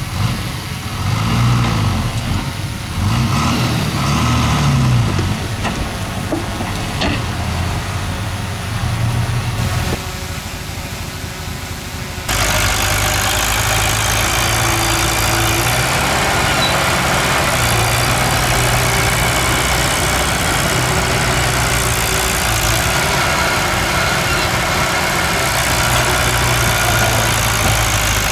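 Diesel engine of a heavy earthmoving machine at work, its pitch rising and falling as it is revved and loaded. About twelve seconds in, the sound changes abruptly to a louder, steady engine run with a rough, noisy edge.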